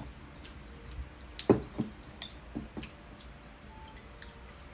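A handful of light, scattered clicks and clinks of tableware, such as chopsticks on plates, being handled at a meal. The loudest comes about a second and a half in.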